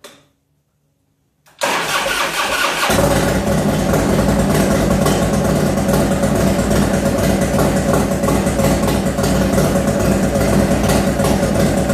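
A 1995 Harley-Davidson Heritage Softail's rebuilt Evolution V-twin, with a Woods cam and a custom two-into-one exhaust, being started for the first time after its rebuild: a click, the starter cranks for about a second and a half, then the engine catches and settles into a steady run.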